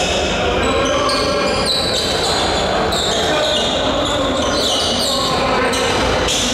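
Basketball bouncing on the court during a game, mixed with the busy noise of play and voices on the court.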